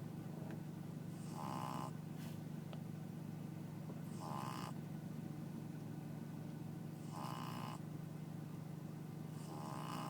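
Pug snoring in its sleep, one snore roughly every three seconds, four in all, over a steady low hum.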